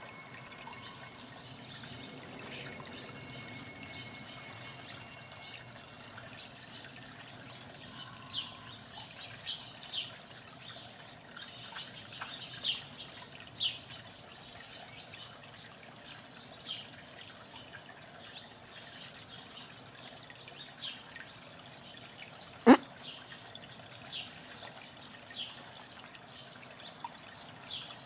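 Water trickling steadily at a backyard bird watering station, with scattered short, high bird chirps and one sharp, loud click partway through.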